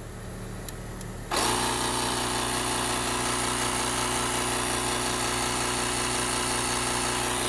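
A portable 12 V tire inflator's air compressor switches on abruptly about a second in and runs steadily.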